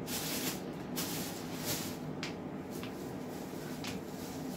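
About six short, hissy rustles and crinkles of plastic as water bottles and a plastic bag are handled, over a steady low room hum.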